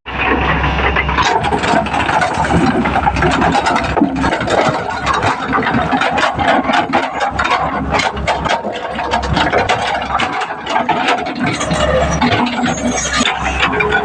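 Excavator engine running steadily, with frequent rattling and clanking over it.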